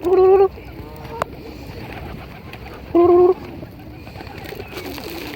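A bird calling twice: two loud, short, steady-pitched calls about three seconds apart, with a brief click between them.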